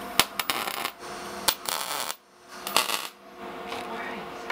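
Wire-feed welder tack-welding steel bar: three short spells of hissing crackle in the first three seconds, each opening with a sharp click.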